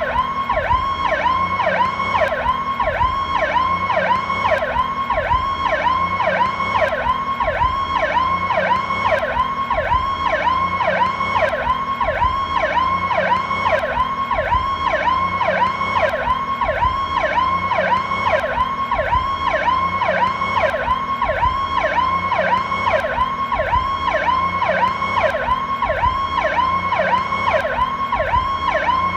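Ambulance siren sounding its Powercall tone: a fast, unbroken rising-and-falling sweep, about two cycles a second.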